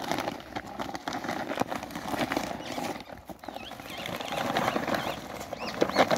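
A woven plastic sack crinkling and rustling as it is tugged and prodded open with snake tongs, with many irregular clicks and scuffs against the gravel. A series of high chirps comes in near the end.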